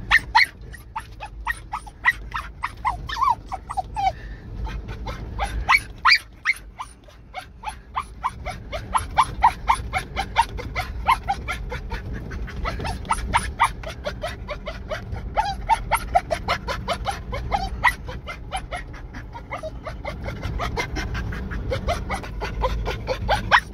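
Russian spaniel whining and yipping in a fast, unbroken string of short high squeals, several a second, from inside a car. It is straining at the sight of game it is not allowed to chase.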